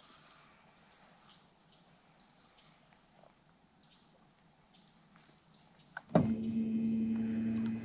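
Faint, steady insect buzz, then about six seconds in a click and a bow-mounted electric trolling motor switching on with a steady electric hum, which briefly dips near the end.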